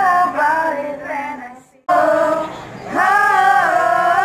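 A group of teenage girls singing a slow melody together in held, sustained notes. About two seconds in, the singing fades and breaks off for a moment, then comes back abruptly at full strength.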